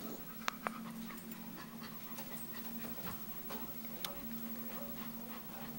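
Dog panting quietly over a steady low hum, with a few sharp clicks about half a second in and again about four seconds in.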